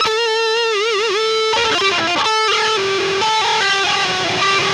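Distorted electric guitar, a Jackson 7-string King V with Seymour Duncan Blackout pickups. A held note wobbles in pitch under the tremolo bar for about a second, then a quick run of single notes follows.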